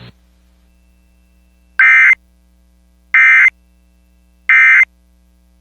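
Emergency Alert System end-of-message code: three short, evenly spaced bursts of buzzy digital data tone, the signal that the alert broadcast is over.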